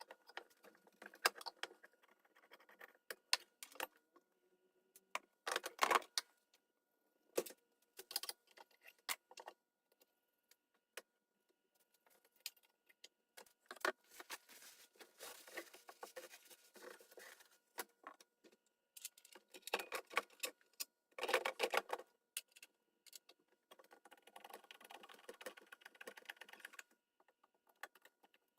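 Irregular clicking, tapping and rattling of small hard objects being handled, with louder clattering about six seconds in and again about twenty-one seconds in.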